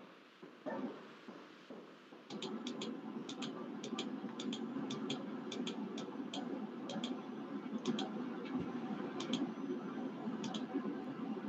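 Computer mouse clicking: about a dozen quick pairs of clicks, spread irregularly, over a steady background hum that comes in about two seconds in.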